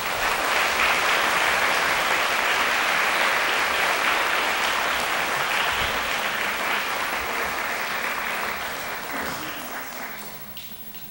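Audience applauding steadily, then dying away over the last few seconds.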